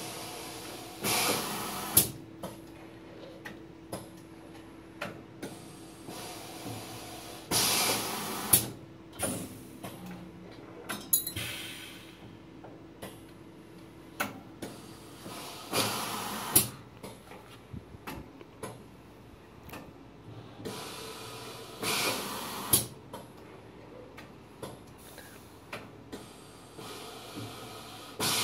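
KIS XENA-I TRIPLE single-stroke tablet press cycling automatically: its pneumatic cylinders release a hiss of air, then a sharp metallic knock, with lighter clicks between. The pattern repeats about every seven seconds.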